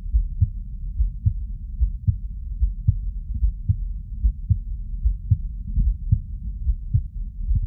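Heartbeat heard through a stethoscope: regular, muffled lub-dub beats.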